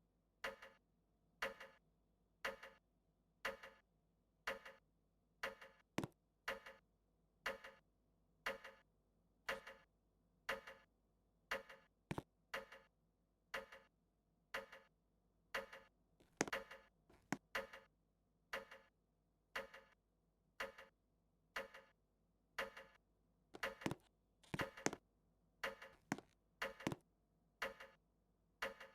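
Harbor Breeze Tahoe ceiling fan running, with a regular sharp click about once a second.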